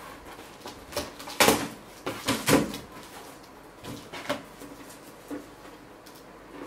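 Cardboard box being torn open by hand: packing tape ripping and stiff flaps pulled apart, in a few short loud tearing bursts in the first half, then lighter rustling of the cardboard.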